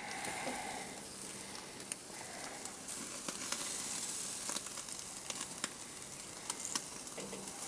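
Thin entrecote steaks sizzling on the grate of a hot charcoal barbecue: a steady hiss with scattered sharp pops and crackles.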